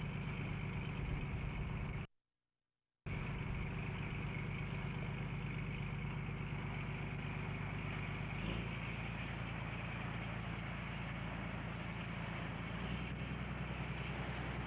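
A fishing boat's engine running steadily, a low hum with a slight change in its note about eight seconds in and again near the end. The sound drops out completely for about a second shortly after the start.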